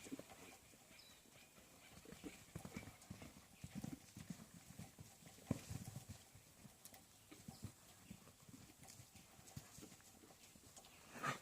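Horse's hooves clopping faintly and unevenly, with a short, louder rush of breath near the end.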